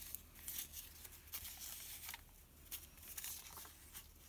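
Hands rustling and crinkling paper, a torn-edged book page among it, in irregular soft crackles.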